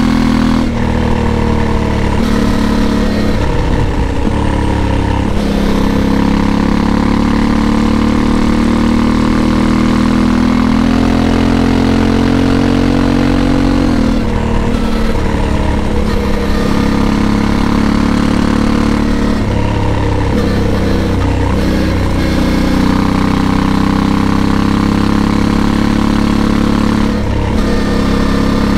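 Honda Africa Twin 1100's parallel-twin engine running on the move, its pitch dropping and climbing again several times as the revs change.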